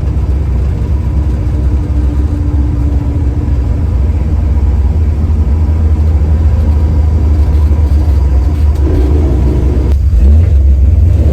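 1970 Chevy Nova's engine pulling the car along the road, a loud, steady low drone. About ten seconds in it drops off briefly and then comes back louder.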